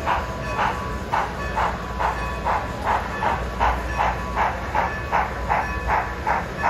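HO scale model of Strasburg Rail Road steam locomotive No. 90 chuffing steadily through a sound decoder as it pulls its passenger train, about two and a half chuffs a second, with a faint steady tone underneath.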